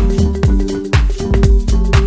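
Background electronic dance music with a steady four-on-the-floor kick drum and synth chords.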